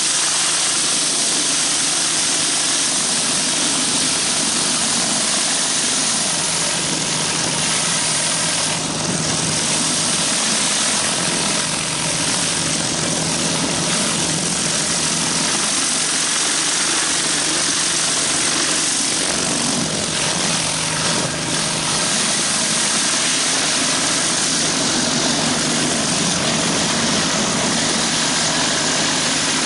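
Pressure washer's engine running steadily, with the hiss of high-pressure water spraying from a 14-inch B.E. Whirlaway surface cleaner onto concrete.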